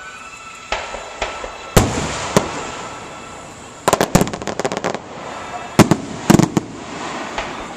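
Aerial fireworks shells bursting: separate sharp bangs, a quick string of cracks about four seconds in, then the loudest bangs around six seconds.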